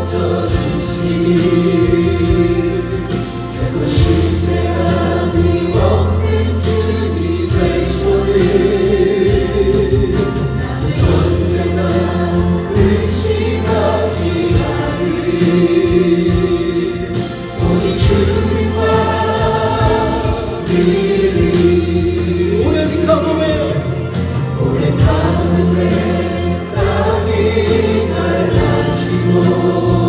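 Choir singing a gospel hymn in Korean over instrumental accompaniment with a steady bass line.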